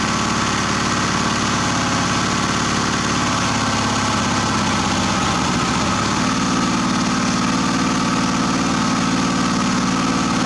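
Wood-gas-fuelled generator engine running unevenly and nearly stalling on gas over-enriched by oil fed into the gasifier's air intake. About halfway through, as more air is let in at the mixer, it settles back into a steady run.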